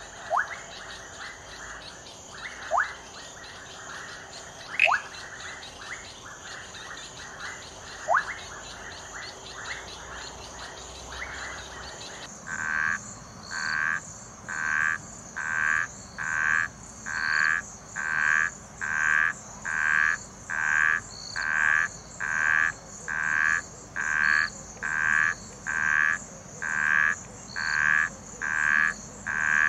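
A night chorus of fast pulsing calls, with four short rising whistle calls over it. About twelve seconds in it gives way to a frog croaking loudly and evenly, a bit more than one croak a second.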